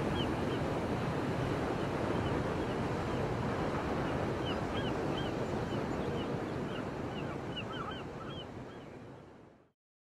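Ocean surf breaking and washing on a beach, a steady rush, with a scatter of short high bird calls over it. The sound fades out near the end.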